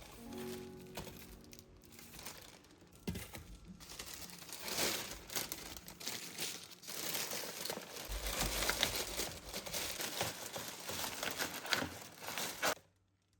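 Packaging crinkling and rustling as it is handled, with scattered small clicks and knocks; it stops abruptly near the end.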